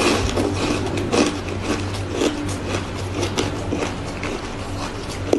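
Close-up crunching and chewing of shaved, crushed ice: a run of irregular crisp crunches, several a second, over a steady low hum.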